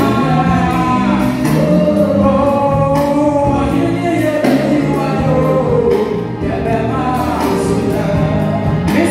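Male vocalist singing a gospel song into a handheld microphone over an amplified backing track with a steady beat.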